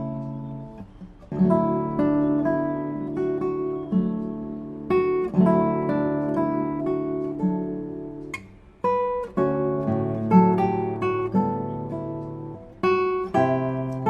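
Background music: solo acoustic guitar playing plucked notes and strummed chords.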